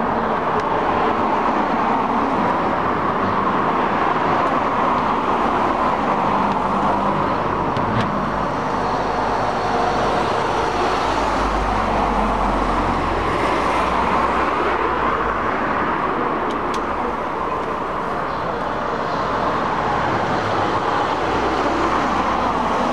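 Steady road traffic noise from passing cars, with a deeper rumble of a heavier vehicle going by about halfway through.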